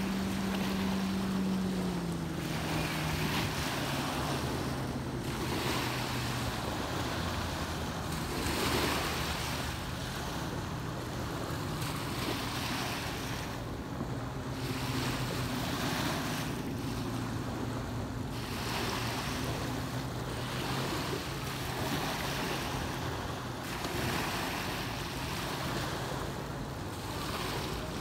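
Small waves lapping and breaking on a sandy lake shore, a wash every two to three seconds. Under it an engine hums steadily, its pitch dropping about two seconds in.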